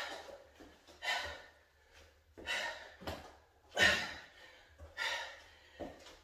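A man breathing hard from exertion while doing dumbbell swing lunges: sharp, noisy breaths, about five of them, roughly one every second and a quarter.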